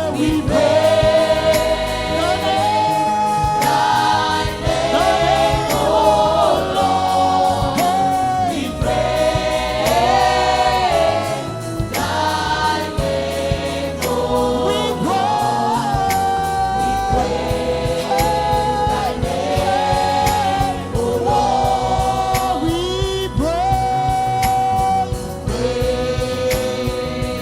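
Gospel praise singing: a choir and lead voices singing over a band with a steady beat.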